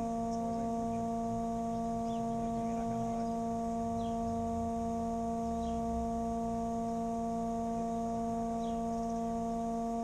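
A steady hum made of several held tones, with faint short chirps every second or two.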